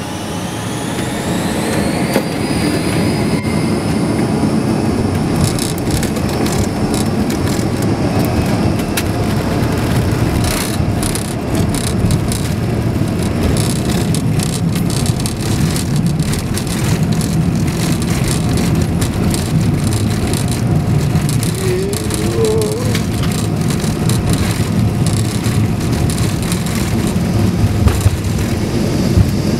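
Cabin noise of a Dassault Falcon 50 business jet's three turbofan engines on the takeoff roll. A high whine rises in pitch over the first few seconds as the engines spool up, then holds as a steady loud rush with many rattles and knocks as the jet runs down the runway.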